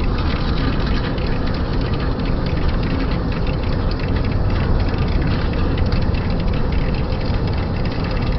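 Lathe running while turning a 40Kh alloy steel shaft journal: steady machine noise with a constant hum and many small ticks.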